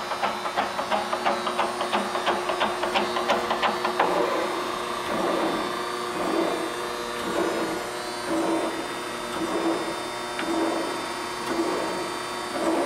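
Chevalier FSG-1228AD automatic surface grinder running its automatic cycle on its power feeds. A quick run of clicks, about five a second, lasts about four seconds, then a whirring pulse repeats about once a second over a steady machine hum.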